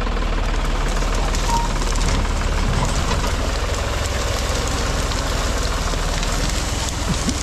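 An engine running steadily at low speed, with scattered light crackles over it.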